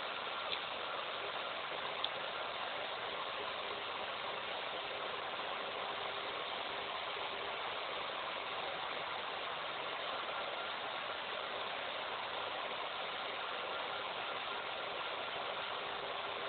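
Unipolar stepper motor driving a robot arm, running steadily with an even hum over a hiss, with two small ticks in the first two seconds.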